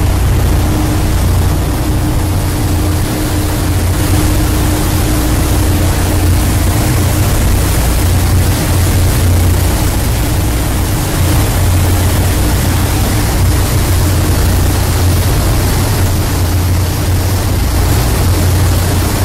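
A river cruise ship's engines and propellers running under way with a steady low rumble, over the rushing hiss of the churning wake. A steady hum runs alongside and fades out about three-quarters of the way through.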